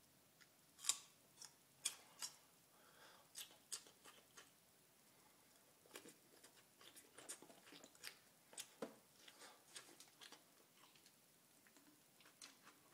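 Faint, irregular crisp crunches and clicks from raw garlic cloves being chewed and handled.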